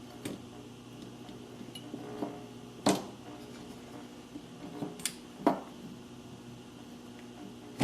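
A few sharp clicks and clinks of metal tools against a circuit board during desoldering, about four spread over several seconds, over a faint steady hum.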